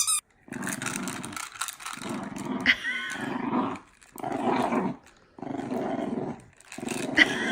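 A dog growling in a series of rough bouts, each about a second long with short pauses between.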